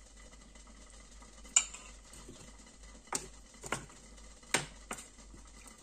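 Small metal leche flan molds clinking as they are handled and set down on a wooden table: about five sharp knocks, the loudest about one and a half seconds in.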